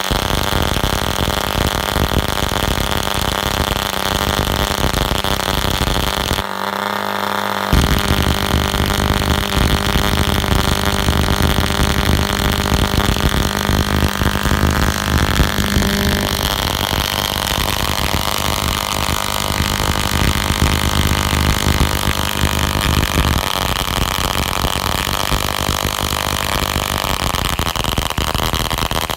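CS Hunter .21 (3.5 cc) model diesel engine running steadily, set rich and under-compressed to keep its revs down while it is new and unrun. Its note shifts about halfway through.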